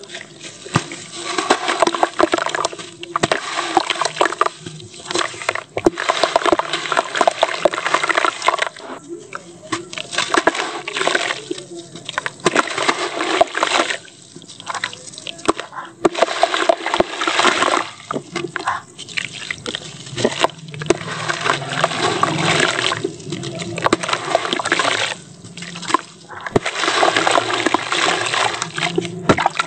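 Hands squeezing and crumbling a wet sand-cement chunk in a tub of cement water. Water sloshes and trickles with gritty crumbling, coming and going with short pauses.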